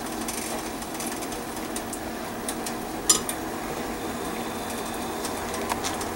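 Coconut-milk sodhi simmering in an uncovered stainless-steel pot: a steady, soft bubbling hiss over a low hum, with one sharp metallic clink about three seconds in.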